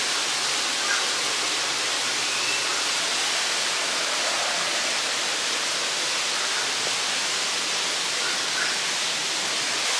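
Waterfall with water falling and splashing in a steady, even rush.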